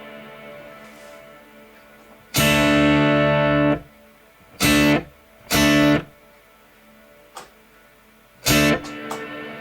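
Electric guitar (a Telecaster) through a Strymon Big Sky MX reverb pedal in freeze mode: a chord's reverb tail fades quietly, while the frozen chord cuts in loud and steady four times, each time stopping abruptly, the first for over a second and the others briefly.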